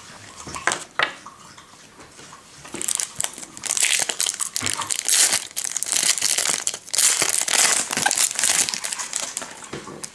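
Foil trading-card pack wrapper being torn open and crinkled in the hands, a dense crackling that starts about three seconds in and runs until just before the end, after a few light handling clicks.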